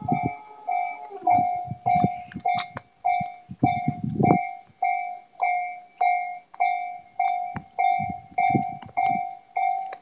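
Japanese level-crossing warning bell ringing in a steady, repeating ding, a little under two strikes a second, each strike fading before the next. A few low rumbles come and go underneath.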